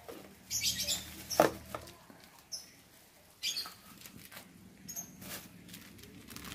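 Plastic bags rustling and crinkling in short irregular bursts as hands dig into a black plastic bag and pull out a small clear bag.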